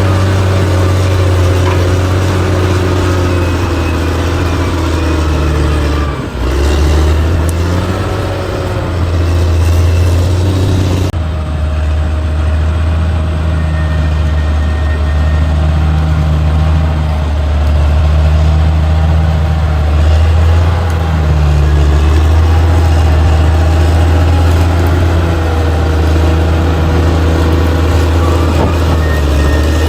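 Bulldozer's diesel engine running steadily under load, its pitch rising and falling as the work goes on. The sound changes abruptly about eleven seconds in.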